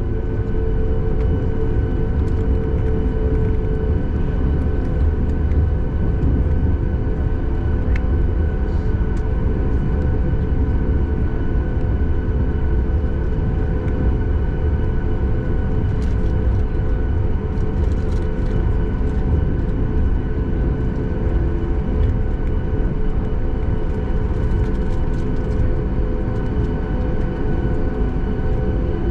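Steady cabin noise of a Boeing 737 MAX 8 on the ground: its CFM LEAP-1B engines hum and whine evenly at low thrust over a continuous low rumble, as the jet taxis before takeoff.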